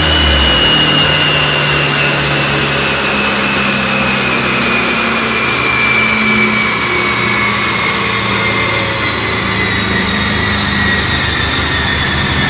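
Honda Civic Type R's turbocharged 2.0-litre four-cylinder running through an Armytrix exhaust on a chassis dyno. The engine note drops just at the start, then runs steady at low revs, while a thin high whine slowly falls in pitch throughout.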